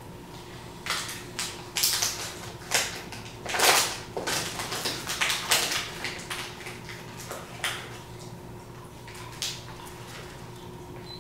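A run of irregular clicks, knocks and rustles, busiest through the first half and thinning out later, over a steady low electrical hum.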